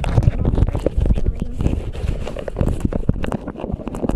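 Close rustling, rubbing and knocking on a body-worn clip-on microphone as the wearer moves, a dense low rumble broken by many irregular clicks and crackles.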